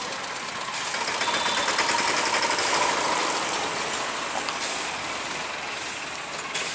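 Road traffic crossing close by: a small goods truck's engine running as it drives slowly past, over a steady hiss of mixed engine and tyre noise from a tractor and motorcycles.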